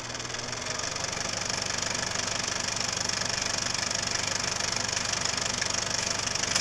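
Film projector running: a fast, even mechanical clatter that grows slightly louder.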